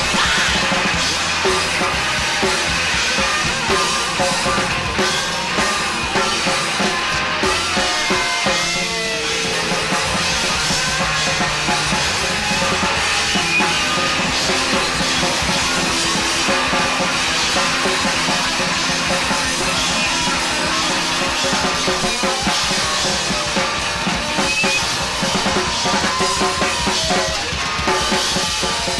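Live rock band playing an instrumental passage, with drum kit, bass drum and snare keeping a steady beat under the other instruments.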